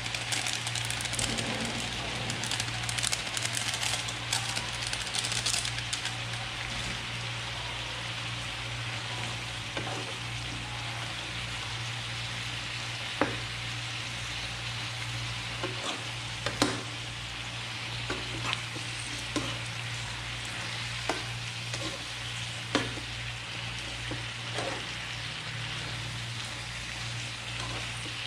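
Chicken, potatoes and carrots sizzling in a frying pan while being stirred with a spoon, the sizzle loudest and most crackly for the first several seconds. Short knocks of the spoon against the pan come at irregular intervals, over a steady low hum.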